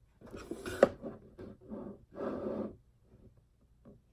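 Rubbing and scraping as the ghost writing book prop and its stand are handled, with a sharp click about a second in and two more short rubbing sounds before it goes quiet.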